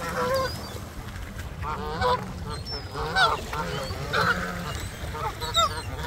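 Canada geese honking, several calls coming about every second, some overlapping.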